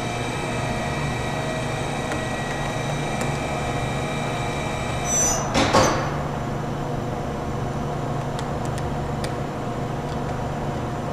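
Steady machine hum with several held tones from an idling Okuma & Howa Millac 511V CNC vertical machining center. About five seconds in comes a short hiss with a brief falling whine.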